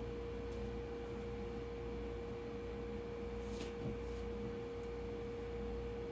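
Steady high-pitched hum over a faint low rumble, with one short click about three and a half seconds in.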